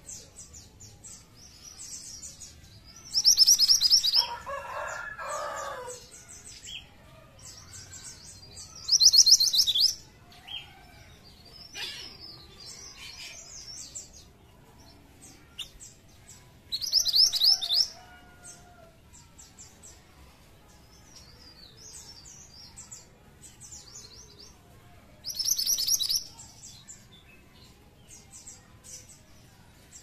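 Minivet singing: four loud, rapid trills of high notes, each about a second long, at intervals of roughly eight seconds, with softer high chirps between them. A lower-pitched call sounds under the first trill.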